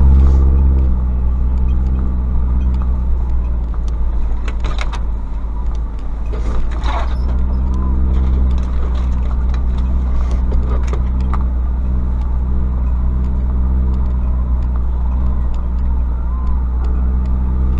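Ford Ranger pickup's 2.5-litre WLT turbodiesel running steadily as the truck crawls at low speed. A few short scrapes, about five, seven and eleven seconds in, fit branches scratching along the bodywork.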